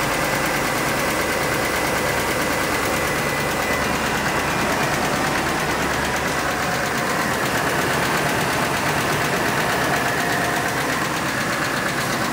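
2018 Ford F-150's engine idling steadily with the hood open, with a tapping noise from the engine. This tap is the fault the truck was sold cheap at auction for.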